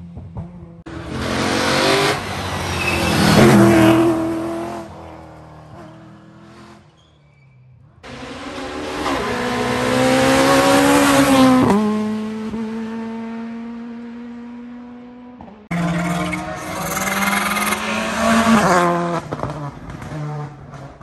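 Rally cars at full speed on a tarmac special stage, heard in three separate passes. Each engine revs hard with pitch climbing and dropping at the gear changes, growing louder as the car approaches and falling away after it passes.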